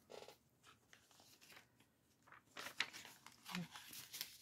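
Faint rustling and crinkling of paper and cardstock journal pages being handled and turned, in a few short scattered rustles that come more often in the second half.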